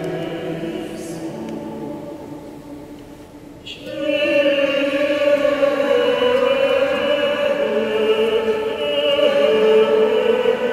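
Voices singing held notes in a large church: one sung phrase fades away, and about four seconds in a louder phrase begins, its held notes stepping down in pitch.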